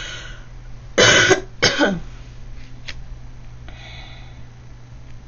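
A woman coughs twice in quick succession about a second in, two short loud coughs.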